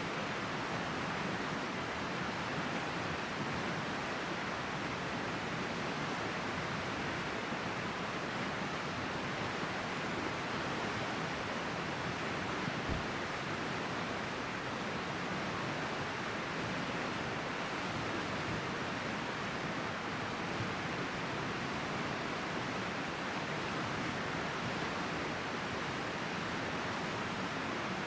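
River water flowing steadily, an even rushing hiss with no breaks.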